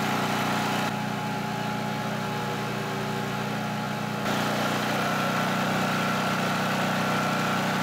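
Coleman Vertex portable generator's engine running steadily under the load of an electric air compressor. About four seconds in the sound steps louder and a steady high whine joins it.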